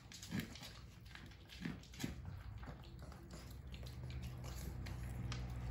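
Two dogs, a pug and a Pekingese, eating dry food from their bowls: irregular crunching and chewing clicks. A low steady hum comes in about two-thirds of the way through.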